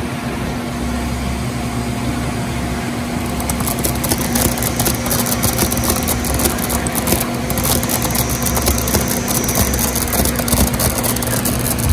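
Metal lathe running with a steady hum while a cutting tool turns a UHMW plastic cylinder, peeling off long stringy chips. From about three seconds in, a dense crackling hiss from the cut joins the hum.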